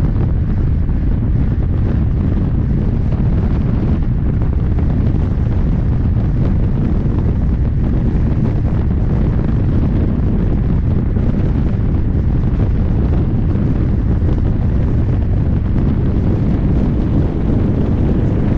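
Steady, loud wind rushing over an action camera's microphone on a handbike's fast downhill run, a low rumbling rush with no breaks.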